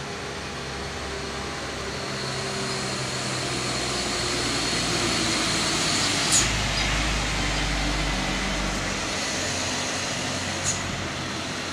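Loaded sugarcane trucks driving past one after another, diesel engines and tyre noise building as the nearest truck goes by about six seconds in with a deep rumble. Two short, sharp high clicks, one as that truck passes and one near the end.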